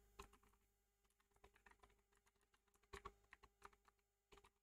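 Faint computer keyboard typing: scattered key clicks in short runs with brief pauses between them.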